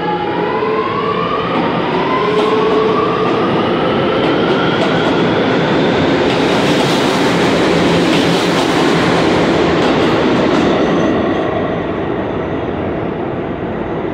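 R211A subway train accelerating out of the station. Its traction motors give a layered whine that rises steadily in pitch over the first few seconds. The wheels then rattle and clack over the rails, loudest as the cars pass, and the sound eases off near the end as the last car pulls away.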